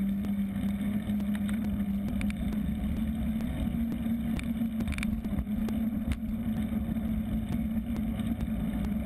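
Engine of a small knobby-tyred motor vehicle running at a steady cruising speed, a steady drone that rises slightly in pitch about two seconds in, over low road rumble.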